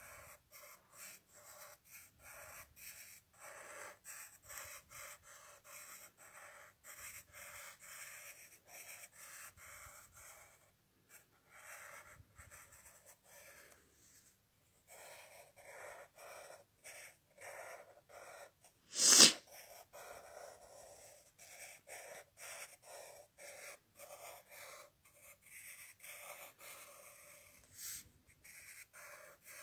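Pencil drawing straight lines on paper: a long run of short scratching strokes. About two-thirds of the way through there is one loud, brief noise.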